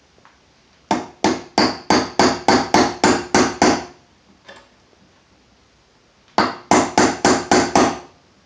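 Small hammer tapping a roll pin into the trigger guard ear of an AR-15 lower receiver: a run of about ten quick metallic taps, about three a second, then after a pause about six more.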